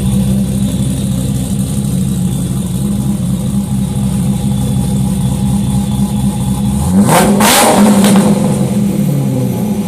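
Loud, turbocharged car engine running at a steady idle, then revved sharply about seven seconds in for about a second before dropping back to idle.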